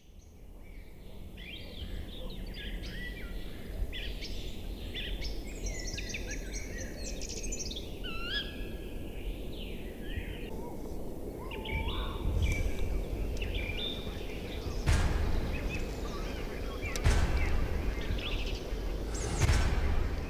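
Birds chirping and singing over a steady low rumble that fades in at the start and grows louder. A few loud thumps come in the second half.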